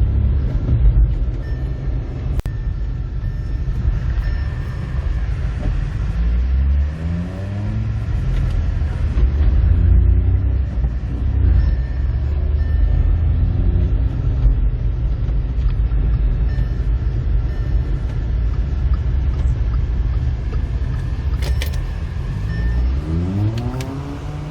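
Car engine running loud and rumbling, revving up several times with its pitch rising as it accelerates.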